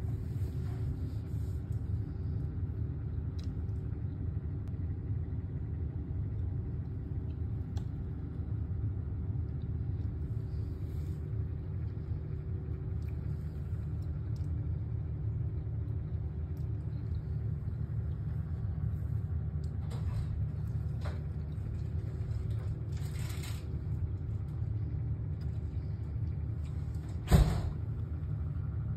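Low steady hum and rumble from the electric motors of the animated Easter rabbit figures running. A few light clicks come through, and one sharp thump about 27 seconds in is the loudest sound.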